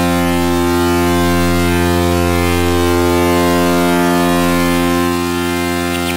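Animoog synthesizer app playing one sustained low note with many overtones, its tone shifting slowly. Just before the end a rapid pulsing starts in the upper range.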